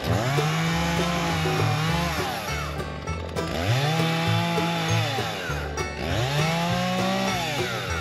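Chainsaw revving up to full speed and cutting into a felled spruce trunk three times, each cut lasting about two seconds, with background banjo music underneath.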